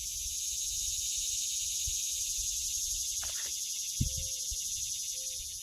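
Cicada buzzing: a steady, high, fast-pulsing drone.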